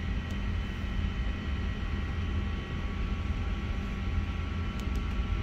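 Steady low hum and air noise inside the cabin of an Airbus A350-900 parked at the stand, from the cabin ventilation, with no engines running.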